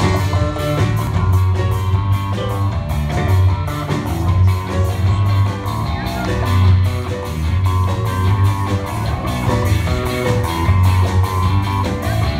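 Live band playing an instrumental passage: strummed electric and acoustic guitars over a pulsing bass line and a steady drum beat, with no vocals.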